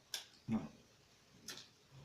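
Eating sounds: a few short, sharp clicks and taps of cutlery and mouth, with a soft low thump about half a second in.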